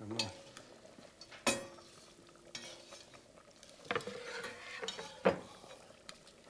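Metal spoons clinking and scraping against a porcelain bowl and a steel stockpot, in a few sharp clinks: the loudest about a second and a half in, ringing briefly, and two more near four and five seconds.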